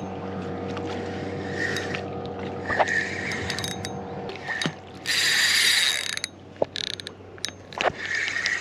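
A fishing reel being cranked with a fish on the line, its gears whirring and clicking under load.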